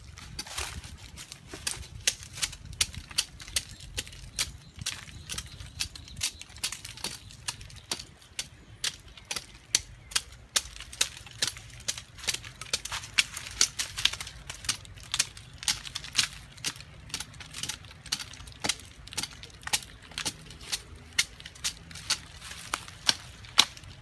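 A machete chopping repeatedly into a tree trunk's bark, sharp hacking blows about two a second.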